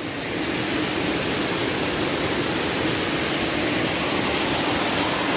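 Floodwater of a monsoon-swollen stream rushing over rocks and across a road: a steady, dense rush that grows a little louder about half a second in.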